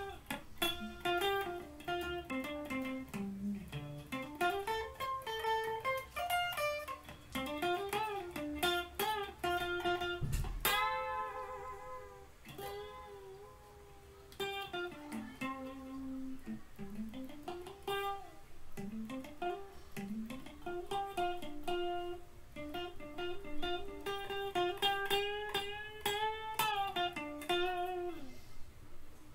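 Electric guitar played through an amplifier: a solo melodic line of quick runs with frequent string bends and slides. About ten seconds in, a struck note rings out and fades over a few seconds before the runs resume.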